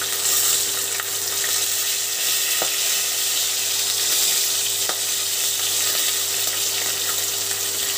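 Fish heads sizzling steadily as they fry in hot oil in a pan, with a few faint taps of a spatula pressing down to break them apart.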